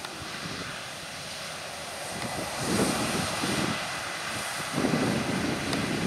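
Two Claas Lexion 7500 combine harvesters running while cutting and threshing oilseed rape: a steady machine drone with a faint high whine, growing louder about halfway through as they come closer.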